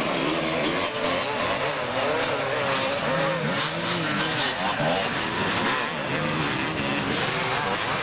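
Several 250cc two-stroke motocross bikes racing, their engines revving up and down over one another as they accelerate out of the dirt corners.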